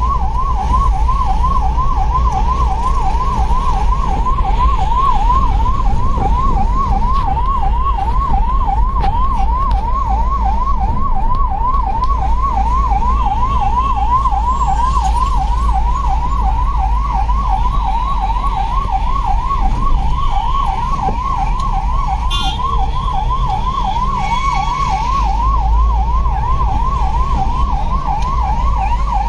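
Ambulance siren sounding steadily in a fast yelp, its pitch sweeping up and down about four times a second, over a low rumble.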